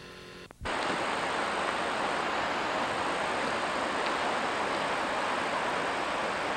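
Mississippi River floodwater rushing through a fresh cut in a levee, a steady, loud rush of water heard on a camcorder microphone, starting abruptly a little over half a second in.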